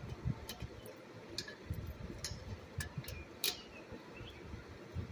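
Irregular light clicks and soft knocks from tools and metal parts being handled while taking apart an air compressor.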